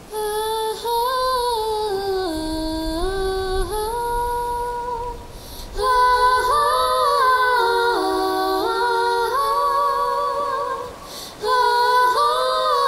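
Woman's voice singing long held notes unaccompanied, stepping slowly from pitch to pitch with short breath breaks. About halfway through, a second voice joins in harmony.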